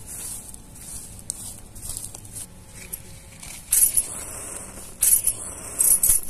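Fingers scraping and scooping dry gravelly soil. A matchstick is then struck on its box, with two loud hissing scrapes about four and five seconds in, and the match catches and burns.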